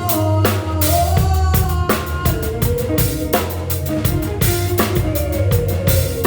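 Band music: a drum kit with bass drum and snare strikes in a steady beat, a heavy bass line, and held melodic notes that bend slightly in pitch.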